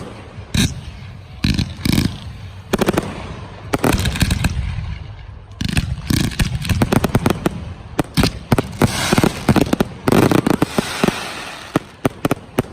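Aerial fireworks bursting: sharp bangs at first, then from about six seconds in a rapid, near-continuous string of bangs with crackling.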